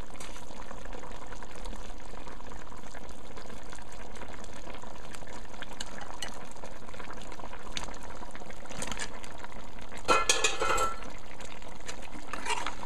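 A pot of mutton curry bubbling steadily at the boil. A brief clatter about ten seconds in as cut potato pieces go into the pot.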